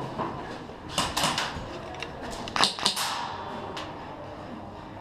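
Sharp snaps of airsoft guns firing in short groups: about three quick shots around a second in, and a few more around two and a half to three seconds in.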